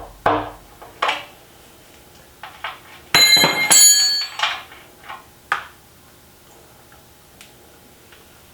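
Metal tools and parts being handled: a series of sharp clanks and knocks, with about a second of bright, bell-like metallic clattering and ringing near the middle.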